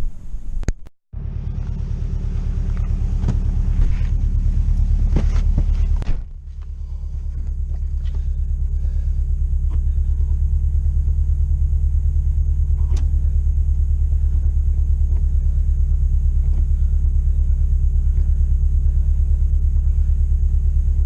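Subaru Impreza's flat-four engine running with a steady low rumble, as when driving. About six seconds in the rumble drops off suddenly and builds up again, the way it does around a gear change.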